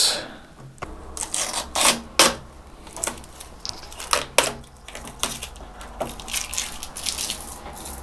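Protective plastic film being peeled off a motherboard's heatsink covers: short tearing, crinkling rasps with scattered small clicks.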